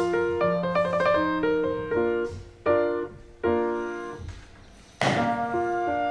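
Solo piano background music, a run of separate notes. About five seconds in comes a sudden short burst of hiss-like noise that fades within about half a second.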